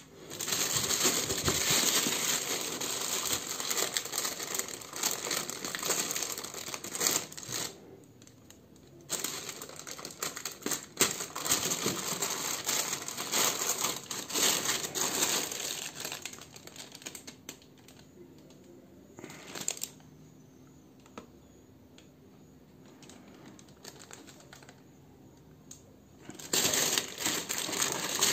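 Thin clear plastic bag crinkling as it is handled and worked open. The crinkling comes in spells, with a short pause about 8 seconds in and a longer quiet stretch from about 17 to 26 seconds, broken once by a brief burst.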